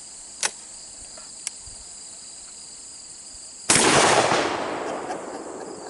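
A single shot from a Fed Arm SS12 single-shot break-action 12-gauge shotgun, about three and a half seconds in, with a sudden loud crack that dies away over about two seconds. Two light clicks come before it.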